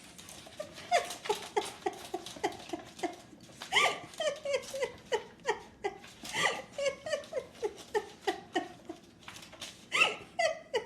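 A cat meowing over and over in short, falling calls, about three a second, with a few louder meows among them.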